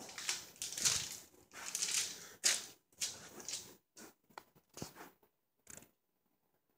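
Irregular rustling and crinkling, a string of short scratchy noises that come thick for the first few seconds and then thin out to a few isolated ones.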